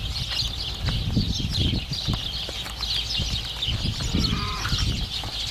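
Many small birds chirping rapidly and without pause, high-pitched, over irregular low rumbling.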